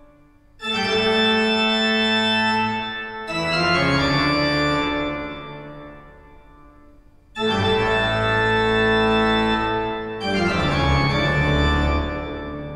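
Organ sound from a stage keyboard playing four long sustained chords as the opening of a rock song. The chords come in two pairs, each pair dying away before the next begins, with a low bass under the second pair.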